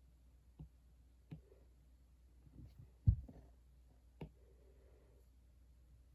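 A few light clicks and knocks of objects being handled on a desk, with one much louder, low thump about three seconds in.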